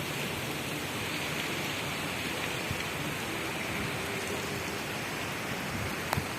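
Steady typhoon rain falling, an even continuous hiss, with a single sharp tick near the end.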